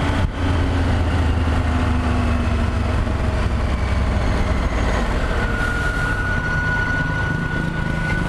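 Triumph Tiger 1200's three-cylinder engine running on the move, and about five seconds in a steady high-pitched squeal starts and holds: the clutch noise that appears when the clutch lever is pulled, a fault the dealer has accepted for a clutch replacement under warranty.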